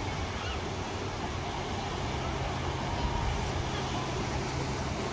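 Steady wash of sea and wind noise with a low, even hum underneath.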